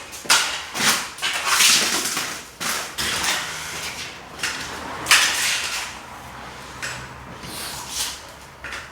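Drywall tools working joint compound: a series of irregular scraping swishes, some short and some lasting about a second, as mud and paper tape are run along the joints.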